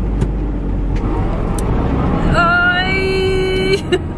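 Car engine running hard under load as the car tries to pull itself out of mud and fails to get free, a steady low rumble. Just past halfway a high held tone sounds for about a second and a half.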